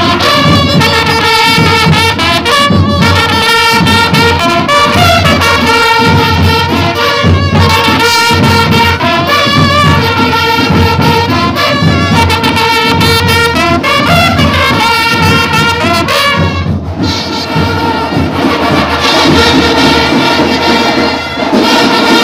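Marching band playing a march at close range: a brass section of trumpets and other horns carrying the melody in loud sustained notes, with drums keeping the beat underneath.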